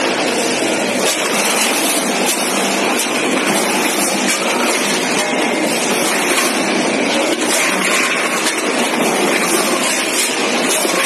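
Multihead combination weigher running with frozen chicken drumsticks, the hard frozen pieces clattering over its vibrating stainless steel top cone and feed pans in a dense, steady rattle.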